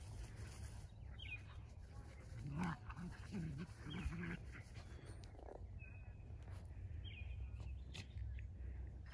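Miniature pinschers growling in play, a run of short growls about two and a half to four seconds in.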